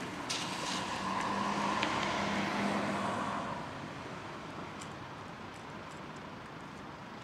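A motor vehicle going past, its engine hum and road noise swelling over the first few seconds and then fading away.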